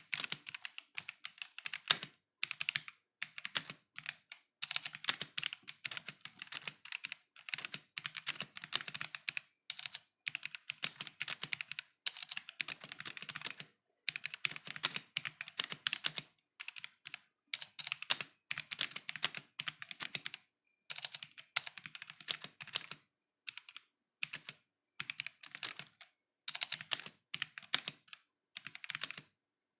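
Typing on a stock K66 mechanical keyboard with Gateron Black switches: runs of rapid keystrokes broken by short pauses.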